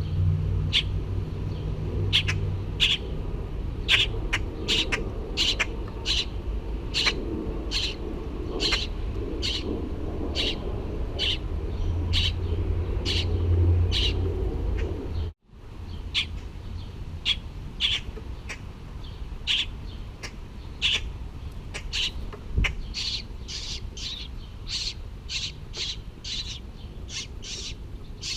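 Baby bird chirping: short, high calls repeated about once or twice a second. A low rumble runs under the first half and cuts off suddenly about halfway through.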